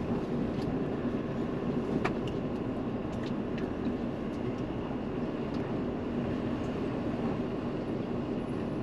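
Ford Bronco driving slowly over a dirt trail, heard from inside the cab: a steady rumble of engine and tyres, with a few light clicks.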